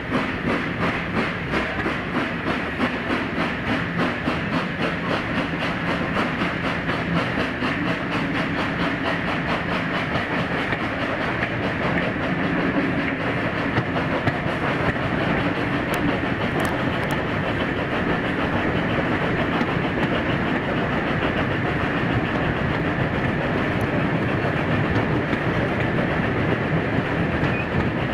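Steam-hauled train running, with a fast, regular beat of exhaust and wheel noise. The beats stand out sharply for the first few seconds, then merge into a denser, steadier sound.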